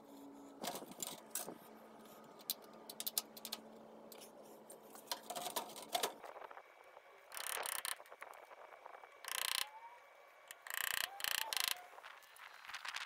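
Clicks and knocks of a plastic water line being worked into a brass fitting on an evaporative cooler's base, followed by several short bursts of scraping.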